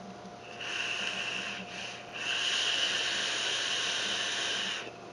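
Hissing draw on an E-Leaf iStick box mod with a Tugboat V2 dripping atomizer, air pulled through the atomizer as the coil fires. There is a short pull, then after a brief pause a longer one of nearly three seconds.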